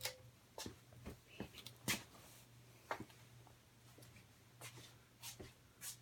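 Harbor Breeze Builder's Best ceiling fan running on medium speed: a steady low motor hum, with a handful of scattered clicks.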